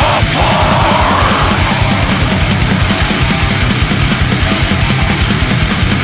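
Heavy metal song: distorted electric guitars over fast, steady kick drumming, loud throughout.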